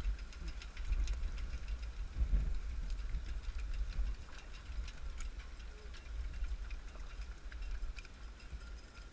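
A run of light, quick ticks and clicks over a low, uneven rumble. The clicks come densely at first and thin out after about four seconds.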